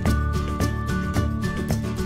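Background music with a steady beat and sustained melody notes.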